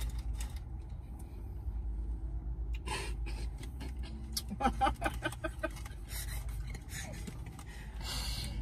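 Steady low hum of a car cabin, with scattered clicks and rustles from people eating takeout food. A brief faint voice murmurs about halfway through, and a short rustle comes near the end.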